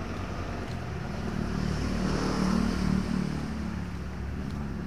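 A motor vehicle passing by: its engine and tyre noise build to a peak about halfway through, then fade.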